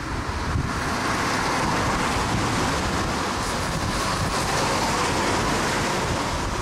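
Heavy rain with wind buffeting the microphone, under a steady rushing hiss that swells about half a second in and eases near the end.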